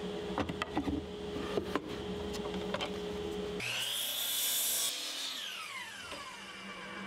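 Miter saw cutting a pressure-treated 1x4. Its motor starts with a sharply rising whine a little past halfway, runs loud through the cut, then the blade winds down with a falling whine. Before the cut, the board knocks and clicks as it is set against the saw's fence.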